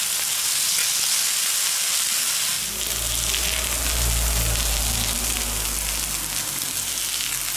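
Pork fillet pieces sizzling steadily on a hot fire plate as more are laid on with tongs. A low rumble joins from about three to six seconds in.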